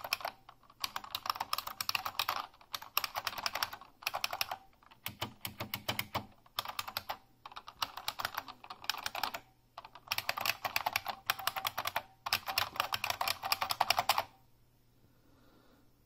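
Unicomp Ultra Classic keyboard's buckling spring key switches clicking under fast typing, in several bursts with short pauses between them; quite clicky, a substantial click. The typing stops about two seconds before the end.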